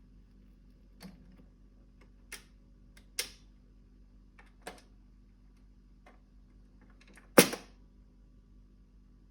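A scattering of about five sharp clicks and knocks at the Dansette Conquest Auto record player between records, the loudest a knock about seven seconds in. A steady low electrical hum from the player runs under them.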